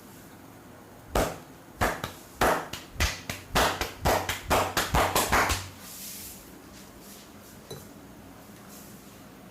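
Percussive hand strokes of a head and upper-body massage: about fifteen sharp slaps in quick succession, coming faster over about four seconds.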